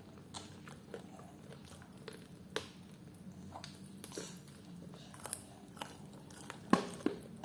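A child eating fried chicken and rice: quiet chewing and mouth smacks with scattered small clicks and taps, a louder pair of clicks near the end.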